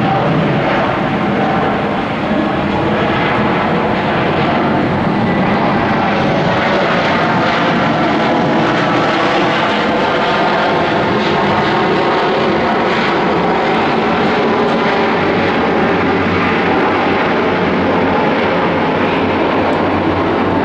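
Airliner jet engines running loud and steady, with faint whining tones that slowly shift in pitch.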